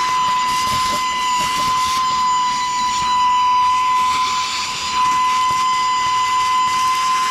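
SAKER cordless mini vacuum cleaner running with a crevice attachment, sucking up dirt and small rocks: a steady high motor whine over a rush of air.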